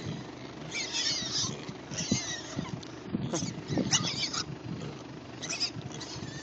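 Piglets squeaking and squealing in short bursts, about five times, over low grunts from the pigs as they root and feed in muddy grass.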